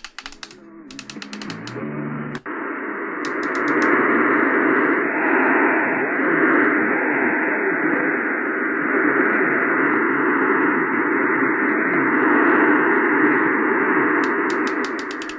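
Sangean HDR-16 portable radio tuned to 660 kHz AM, its speaker giving a steady hiss of interference: the digital HD Radio signal of the adjacent 670 station spilling onto the channel. A few clicks sound in the first couple of seconds, then the hiss swells and holds.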